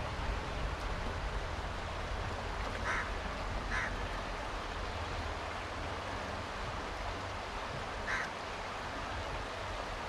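River water rushing steadily, with three short high calls about three seconds in, just after, and again near the end.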